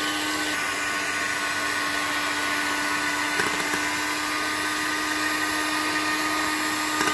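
Electric hand mixer running steadily at slow speed, its beaters whisking raw eggs in a glass bowl with an even motor hum.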